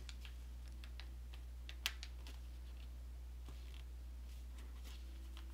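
Origami paper being folded and creased by hand: faint scattered crinkles and ticks, with one sharper click about two seconds in, over a steady low hum.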